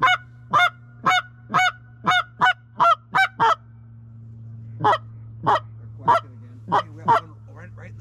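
Loud quacking from a hunter's duck call: a run of about nine quacks that quicken over three and a half seconds, then, after a pause, five more.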